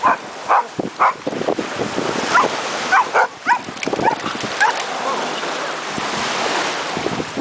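Dogs barking in short, repeated bursts while they chase and wrestle in play, over a steady background hiss.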